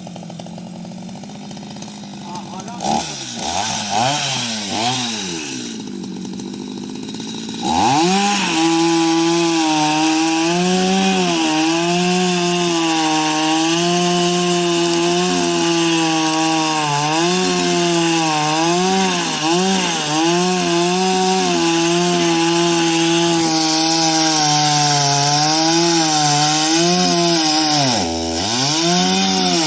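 Two-stroke chainsaw idling, then revved up and down a few times. From about eight seconds in it runs at full throttle cutting wood, its pitch sagging and recovering again and again as the chain bites. Near the end it drops off for a moment, then picks up again.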